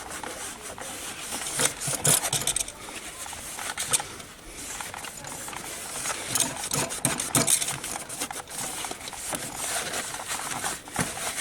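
Irregular rubbing and scrubbing strokes as mixer parts are wiped clean with isopropyl alcohol.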